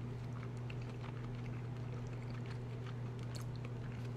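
A person chewing a mouthful of chicken and daikon radish from a stew close to the microphone, with faint wet mouth clicks scattered through, over a steady low hum.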